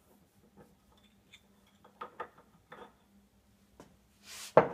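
Metal lathe parts being handled: light clicks and knocks as a disc-shaped attachment is worked off the spindle nose of a watchmaker's lathe, then a louder knock near the end as a part is set down on the bench.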